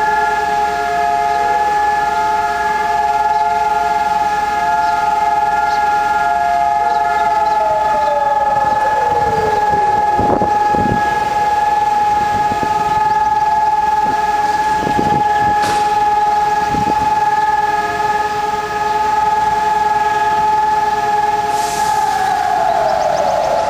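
Civil-defense sirens sounding the memorial-day siren, a steady wail heard as several overlapping tones at different pitches. About seven seconds in, one siren's pitch starts falling, and near the end the main tone winds down as that siren stops.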